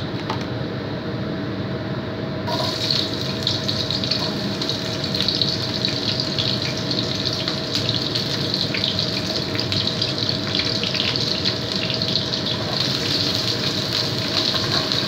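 Sliced shallots and garlic frying in hot oil in a wok, with a dense sizzle that starts suddenly about two and a half seconds in and carries on steadily.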